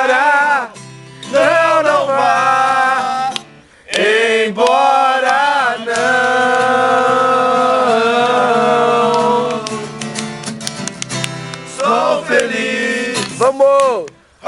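A man singing a slow, wavering melody with heavy vibrato, holding one long passage in the middle, over a steady low instrumental accompaniment. He breaks off briefly a few times.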